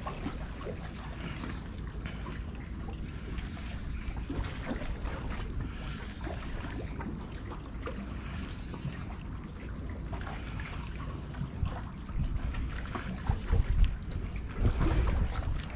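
Steady low rumble of wind buffeting the microphone over the open harbour water, with a few louder irregular bumps near the end.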